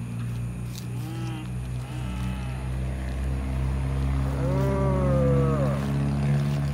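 Long, drawn-out moaning cries that rise and fall in pitch: two short ones about one and two seconds in, then a longer, louder one from about four to six seconds in, over a steady low hum.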